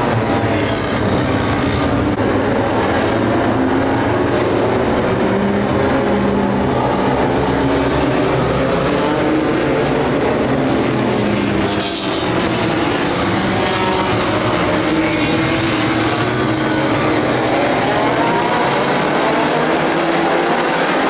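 A pack of compact dirt-track race cars at racing speed, their engines running hard in a loud, continuous din. The pitch of the engines rises and falls as the cars accelerate and lift through the turns.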